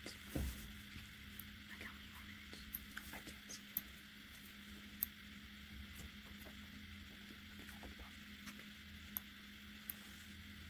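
Faint, scattered small clicks and scratches as seeds are picked out of a strawberry with a small pointed tool, with a soft bump near the start, over a steady low hum.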